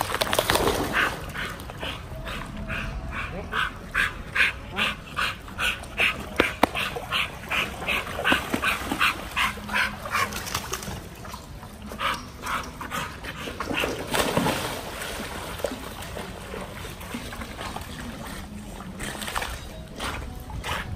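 Pit bull yipping and whining over and over in short high calls, about two or three a second for around ten seconds, then only a few scattered ones.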